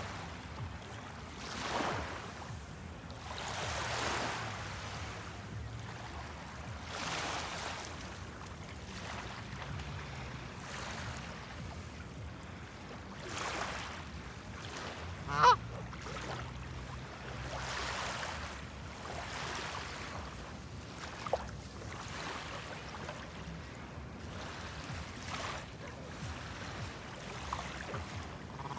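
Small waves washing onto a sandy beach every few seconds. A Canada goose honks once loudly about halfway through, with two short, fainter calls later on.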